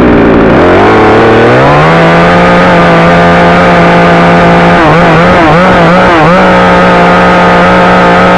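62cc two-stroke chainsaw revved up to full throttle, its pitch climbing over the first two seconds and then holding high. Around five to six seconds in the pitch dips and recovers several times before steadying again, and the engine drops off right at the end.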